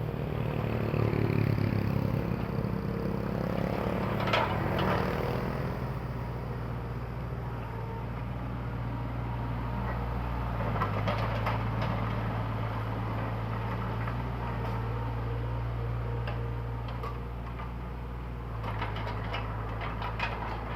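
Komatsu PC20-5 mini excavator's diesel engine running steadily, slightly louder over the first few seconds, with a sharp clank about four seconds in and light clicks and knocks later on.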